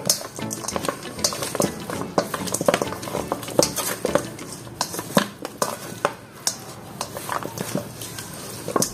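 Wooden chopsticks stirring and tossing marinated duck pieces in a stainless steel bowl, making many irregular clicks and taps of wood against metal.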